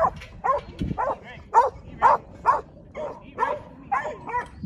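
Working yard dog barking repeatedly at sheep, about two short barks a second, the bark used to force the mob along.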